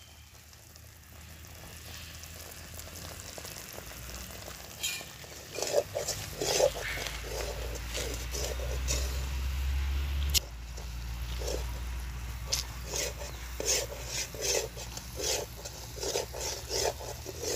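Metal skimmer ladle stirring and scraping a thick coconut burfi mixture in an aluminium kadai, in repeated strokes about two a second from about five seconds in, over a low steady rumble. The mixture is being worked until it thickens.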